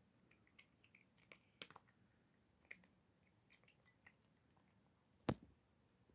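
A cat crunching dry kibble from a bowl: faint, scattered crunches and clicks, with a sharper click about five seconds in.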